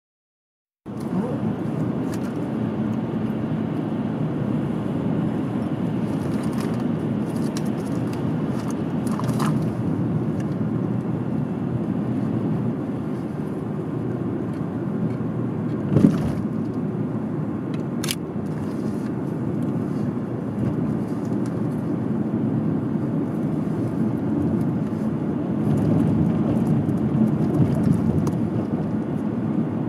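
Car driving along a road, steady engine and tyre noise heard from inside the cabin, starting about a second in. A single thump about halfway through and a brief sharp click a couple of seconds later.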